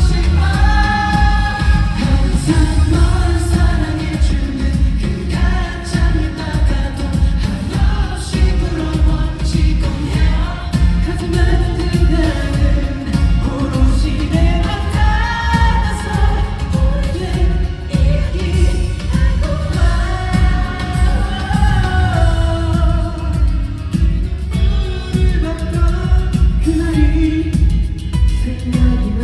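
Live pop song: a male group's vocals singing over a loud backing track with a heavy, steady bass beat.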